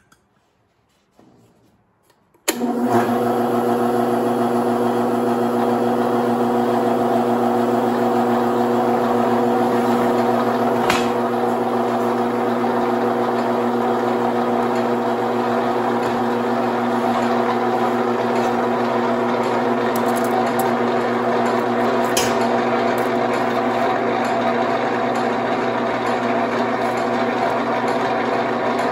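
A Buffalo Jr ironworker's electric motor switches on about two and a half seconds in and runs at a steady hum, unchanged in pitch and level. Two faint clicks come partway through.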